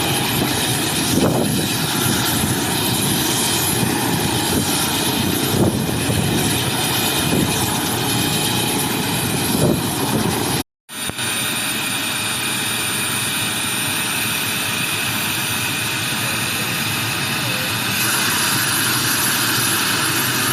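Helicopter engine and rotor noise, loud and steady. It cuts out for a split second about halfway through, then carries on unchanged.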